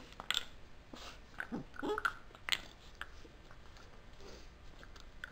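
A puppy making a run of short, high yips and whining cries at a Milk-Bone dog biscuit in the first three seconds, then quieter, with a few faint clicks as it works at the biscuit.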